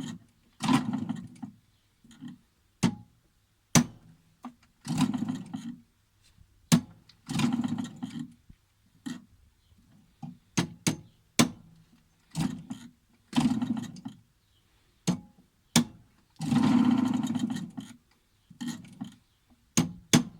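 Light hammer taps on a bent bicycle rear axle, struck through a soft aluminium piece to straighten it: sharp metallic knocks at irregular intervals, mixed with several longer grating noises of about a second each.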